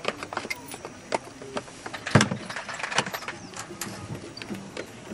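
Clicks and clatter of small gear being handled in and around a plastic toolbox, with one loud knock about two seconds in.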